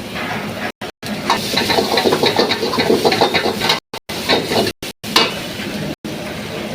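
Kitchen cooking sounds: a utensil stirring and scraping in a pot or pan, with food sizzling. The sound is broken by several brief cuts to silence.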